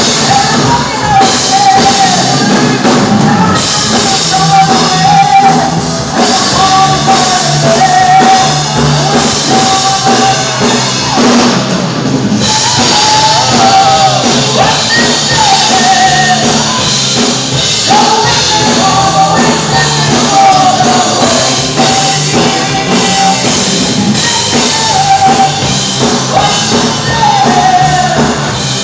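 Heavy metal band playing and singing: a high lead vocal line over guitars and a drum kit.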